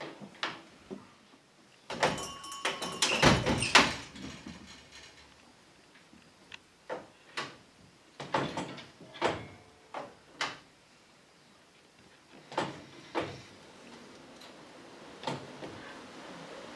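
Scattered sharp knocks and clacks, about a dozen in all, with a dense burst of clattering and brief ringing about two to four seconds in.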